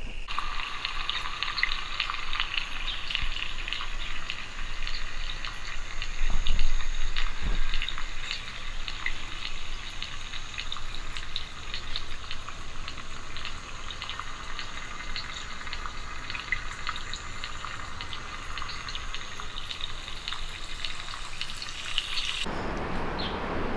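Dense, steady chirring of insects, a crackling hiss full of fast ticks, with a brief low rumble about six seconds in; it cuts off abruptly near the end.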